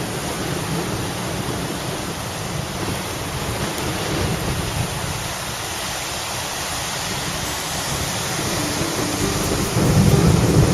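Steady hiss of rain falling with ocean surf washing behind it. A louder low rumble comes in near the end.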